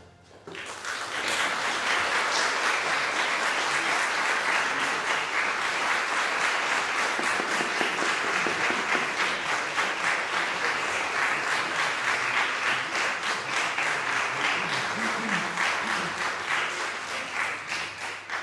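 Audience applauding in a concert hall at the end of an orchestral piece: steady, dense clapping that starts about half a second in and fades near the end.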